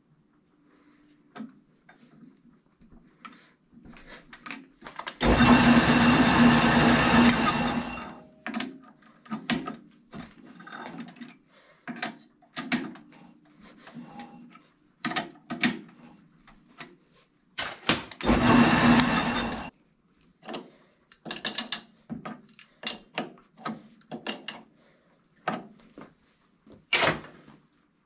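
Atlas metal lathe switched on and run briefly twice: a steady hum for about three seconds starting some five seconds in, and again for a second and a half later on. Between the runs come small clicks and metal taps as the workpiece, chuck and tooling are handled.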